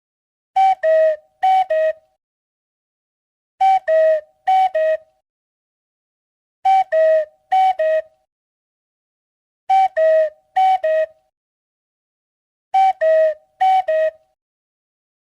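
Cuckoo call, a higher note falling to a lower one, 'cuck-oo', given twice in quick succession. The pair repeats about every three seconds, five times.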